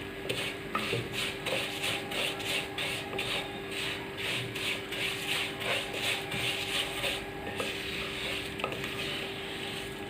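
A spoon stirring vermicelli as it fries in ghee and oil in a pot, toasting it brown: rhythmic scraping strokes, about two or three a second, over a light sizzle.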